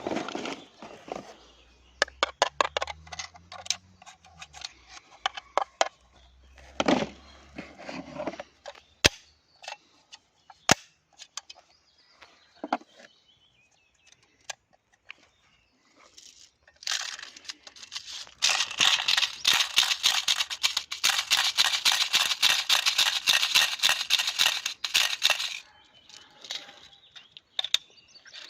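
Double Bell 813S airsoft rifle being handled and fired: scattered clicks and a few single shots, then a long, rapid burst of shots lasting about seven seconds, starting roughly two-thirds of the way in.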